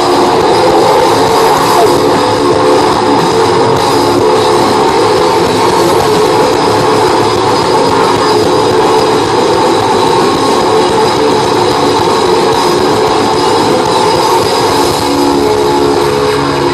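Live groove-metal band playing loud and steady through a stage PA: distorted electric guitars, bass and drums. Heard from the crowd in front of the stage.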